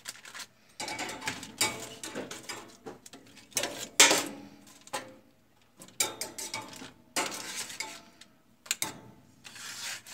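Metal kitchen tongs clicking and scraping against a foil tray and the oven rack as baked chicken drumsticks are turned over. Irregular clatters come every second or so, the loudest about four seconds in.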